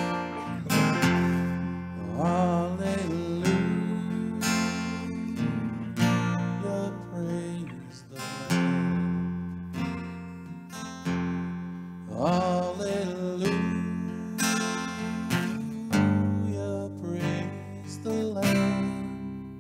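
Acoustic guitar music: chords strummed slowly, a stroke every second or two, with the notes ringing on between strokes.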